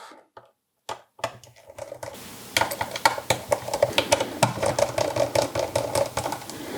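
Screwdriver backing out the small black screws that hold the Xbox Series S controller board: a quick, irregular run of light clicks and ticks over a low hum, starting about two seconds in.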